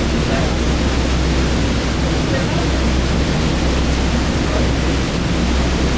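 River boat under way: a steady, loud rush of wind and water over a low engine drone.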